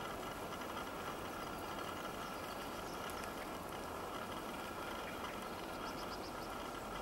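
Steady, even outdoor background rush, with a few faint high chirps about six seconds in.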